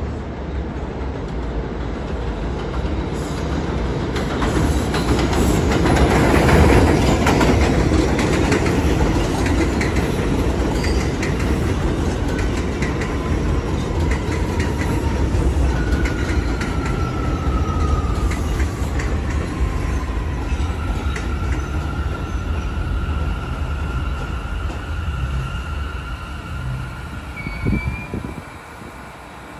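New York City subway train on the elevated Jamaica Line's steel structure, its wheels rumbling and clattering on the rails, loudest about seven seconds in. Later a high whine slides down in pitch and then holds steady as the train slows.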